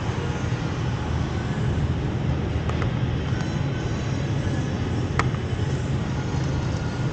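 Steady low rumble of supermarket background noise, with a single sharp clink about five seconds in as a tin can is set back down on a stacked display of cans, and a couple of fainter clicks a little before.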